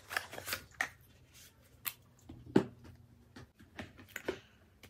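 A powder compact being taken out of its cardboard box and handled: about six scattered clicks and taps with soft rustling between.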